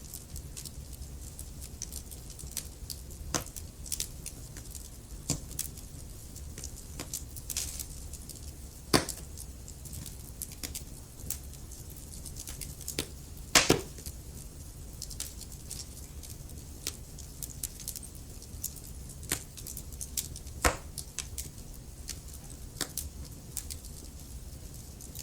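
Wood fire crackling, with irregular sharp pops and snaps over a low steady rumble; the loudest pop comes about halfway through.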